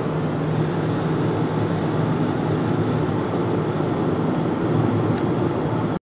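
Car driving at road speed, heard from inside the cabin: a steady low engine and road rumble with tyre noise.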